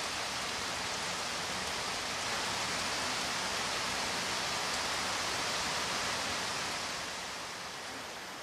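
Heavy tropical rain falling steadily on banana and papaya leaves, a constant hiss that fades toward the end.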